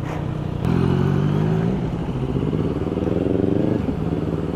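Motorcycle engine pulling away and accelerating. Its pitch rises, drops at an upshift about two seconds in, then rises again through the next gear.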